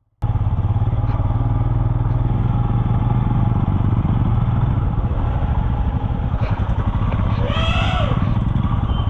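Royal Enfield Himalayan's 411 cc single-cylinder engine running steadily with a deep low rumble, cutting in abruptly just after the start. A short pitched sound rises and falls about three-quarters of the way through.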